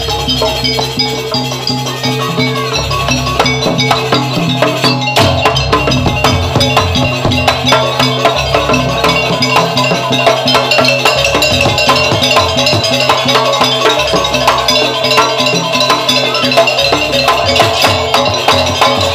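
Live gamelan music for Jaranan Barong: drums, bronze metallophones and gongs playing a dense, steady rhythm.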